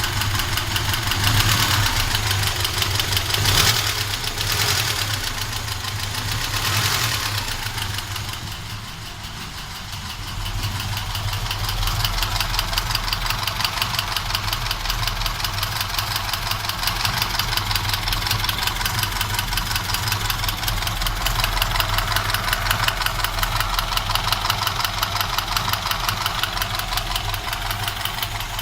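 Moskvich car engine running with a fast, even knock inside the engine. The revs rise and fall a few times over the first several seconds, then it settles to a steady idle with the knock still there.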